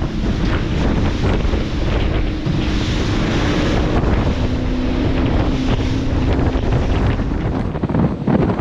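Boat running through rough, choppy sea into strong wind, with heavy wind noise on the microphone and the motor's tone faintly heard underneath.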